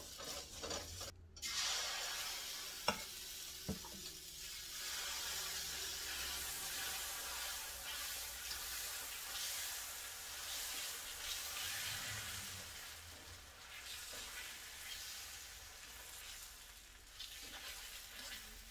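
Dosa batter sizzling on a hot tawa as it is spread out in circles with a ladle, the ladle rubbing lightly over the pan, with two light knocks about three and four seconds in.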